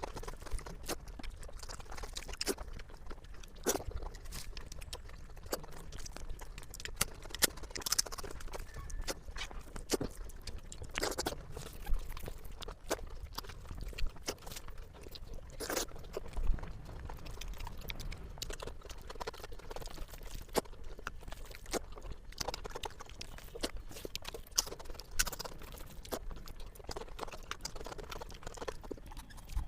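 Close-miked chewing and wet mouth sounds of eating spicy egg curry with rice: irregular smacks and clicks, with a few louder bites.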